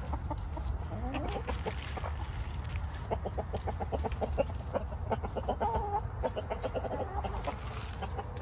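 A flock of hens clucking while feeding: a rising call about a second in, then a quick run of short clucks and a longer drawn-out call in the middle.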